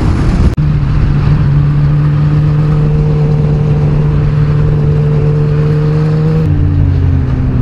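Inline-four motorcycle engine running at steady cruising revs under wind rush, its note rising slowly, then dropping abruptly to a lower note about six and a half seconds in.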